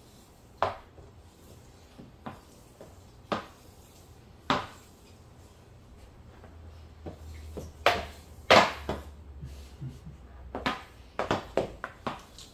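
Hockey stick blade knocking and tapping a hockey puck as it is stickhandled across a floor mat: sharp, separate knocks, a few spaced a second or more apart, then a quicker run of louder hits in the second half.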